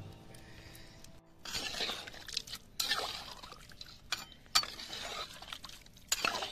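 A metal spatula stirs watery mutton curry in a handi cooking pot: wet scraping strokes with sloshing gravy, broken by sharp clinks of the spatula against the pot, the loudest about four and a half seconds in.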